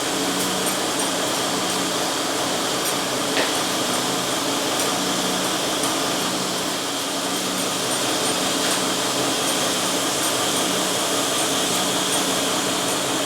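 Steady drone of an engine running at idle on the lifting vehicle, with a single light knock about three seconds in.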